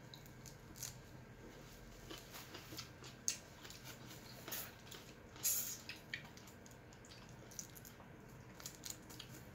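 Eating sounds of a shrimp meal taken by hand: scattered small clicks, crackles and squishes of food being handled and chewed, with a few louder clicks in the middle.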